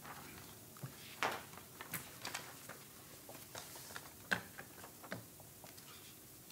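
Faint room tone broken by scattered small clicks and light taps, the loudest about a second in and again past four seconds, as papers and small objects are handled at the desk microphones.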